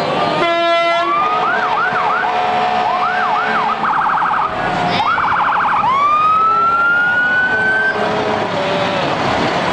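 Fire engine's siren going through short rising-and-falling whoops, two bursts of fast yelp, then one long rising wail, with a short horn blast about half a second in.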